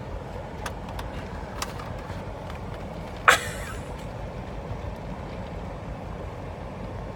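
Steady low rumble inside a car, with a few faint clicks and one loud, sharp crackle a little over three seconds in.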